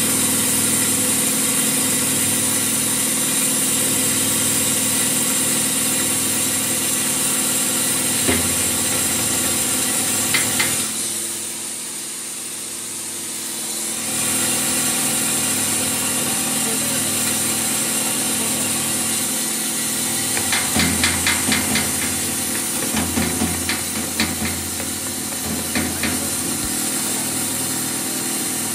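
A 10 HP grain grinder (cattle-feed and wheat mill) running steadily under load as wheat grain feeds from its hopper into the grinding chamber, with a constant machine hum. Short bursts of rattling clicks come in about two-thirds of the way through.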